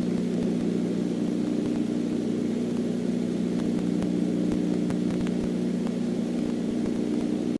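Steady electrical hum in the nest camera's audio, a few low tones held without change over a faint hiss, with a few faint clicks.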